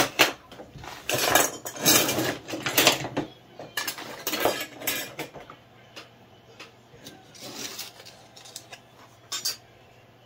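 Hard hand tools clattering and knocking against each other and the bench as they are rummaged through and picked up, busiest in the first half, then a few scattered knocks.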